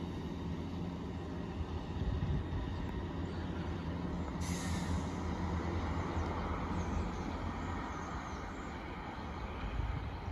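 Class 165 two-car diesel multiple unit running with a steady low engine hum, with a sudden sharp hiss of air from the brake system about four and a half seconds in.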